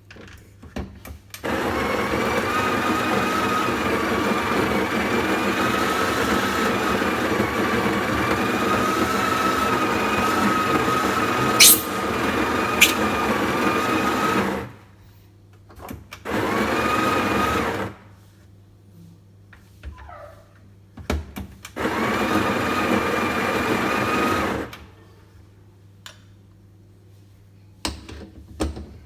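A small electric motor appliance with a blender-like whine runs in three bursts: one long run of about thirteen seconds, then two short runs of two to three seconds. Two sharp clicks come during the long run.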